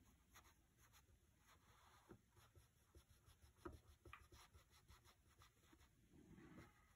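Faint scratching of a coloured pencil on paper, in short irregular strokes.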